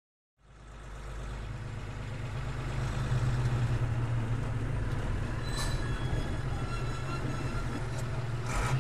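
Bus engines running as the buses pull up: a steady low rumble that fades in over the first second, with a short burst of noise near the end.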